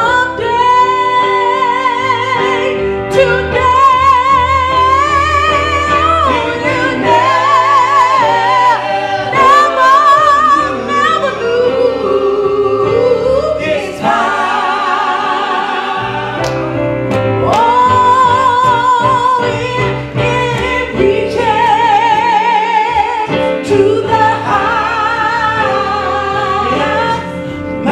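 A woman singing a gospel solo into a handheld microphone, holding notes with pronounced vibrato, over instrumental accompaniment.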